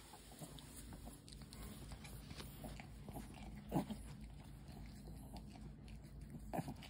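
Bichon frisé greeting its owner excitedly: faint snuffling and light clicks on a wooden floor, with one short yip about four seconds in.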